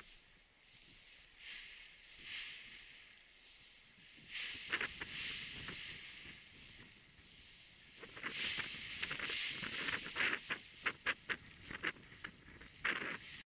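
Paraglider wing's nylon fabric and lines rustling as they are gathered up by hand. Louder crinkling about four seconds in, then a quick run of sharp crackles over the second half.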